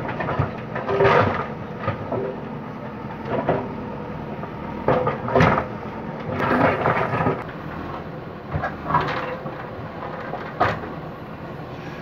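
JCB backhoe loader's diesel engine running steadily under load, with repeated loud crunching and scraping as the backhoe bucket digs into broken brickwork and rubble, the bursts coming irregularly a second or few apart.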